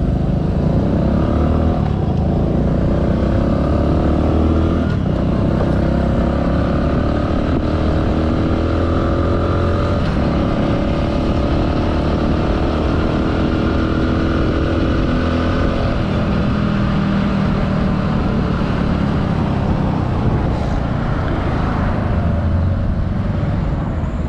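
Motorcycle engine running under way, its pitch slowly rising and falling as the speed changes.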